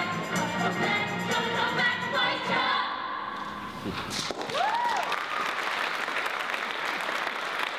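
A stage musical number, with the ensemble singing over the accompaniment, ends about three seconds in. Audience applause follows, with a single rising-and-falling cheer just after it starts.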